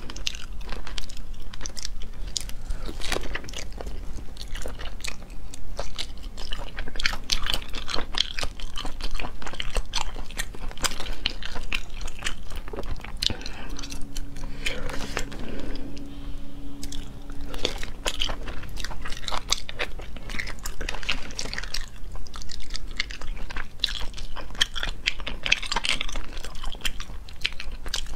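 Close-miked eating sounds: wet chewing and biting of sea snail meat, with many small irregular clicks and crackles. A short low hum sounds about halfway through.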